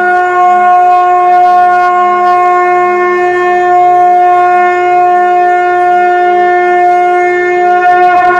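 A conch shell (shankh) blown in one long, steady, unbroken note. A faint pulsing low accompaniment runs beneath it.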